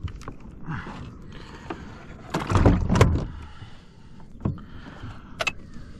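Irregular knocks, clicks and creaks from the fittings of a plastic Hobie Pro Angler 14 pedal kayak as its gear is handled, with a cluster of louder knocks about halfway through.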